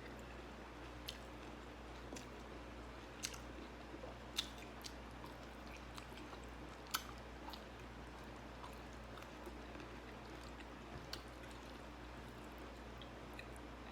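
A person chewing a mouthful of rice and vegetables close to the microphone, with short sharp crunches and mouth clicks at irregular moments, over a steady low hum.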